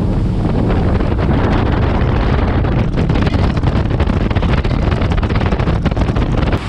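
Heavy wind buffeting the microphone over a bass boat's outboard motor running at speed on open water.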